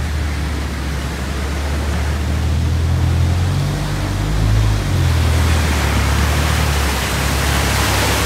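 Steady rushing noise of knee-deep floodwater, with wind rumbling on the phone's microphone. A four-wheel-drive vehicle wades past through the flood about midway, its low engine note shifting as it pushes a wave of water.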